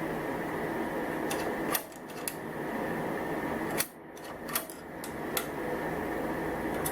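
A few light, scattered metallic clicks and taps of an L-shaped hex key on the set screws of an embroidery machine's upper slider hook bracket as they are tightened, over a steady hum.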